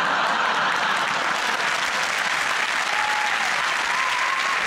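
Studio audience applauding, steady and dense.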